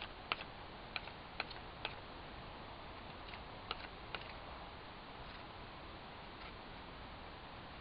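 Condor Bushlore knife whittling a wooden stick: irregular light clicks of the blade biting the wood, several in the first two seconds and a few more around four seconds in, over a steady faint hiss.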